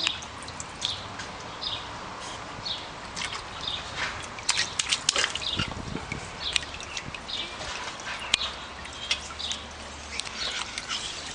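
Water in a baby's paddling pool splashing and slapping in small, irregular bursts, a few a second, as little hands pat at the surface.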